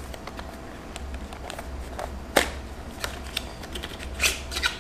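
A small cardboard box being handled and opened by hand: a string of light clicks and scrapes, with a sharp snap about two and a half seconds in and a quick cluster of rustles near the end, over a steady low hum.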